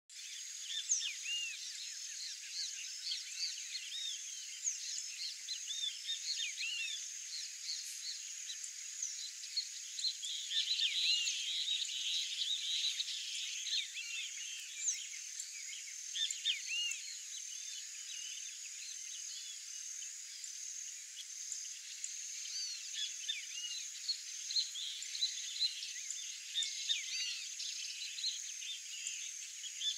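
A dense chorus of many short, high chirping calls from small animals, overlapping throughout and busiest about a third of the way through.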